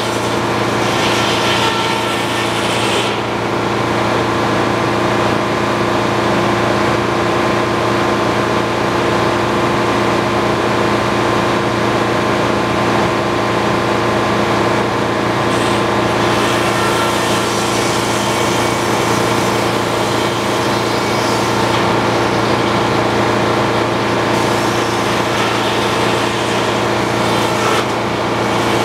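Engine-driven circular sawmill running steadily while its big blade cuts white pine boards. A hiss from the cut comes and goes: in the first three seconds, then again through most of the second half.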